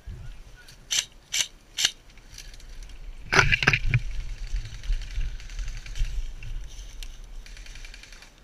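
An airsoft player moving fast through woodland brush in kit: three sharp snaps about half a second apart, then a louder burst of clatter and rustling as he gets down into cover, followed by steady rustling over twigs and leaf litter.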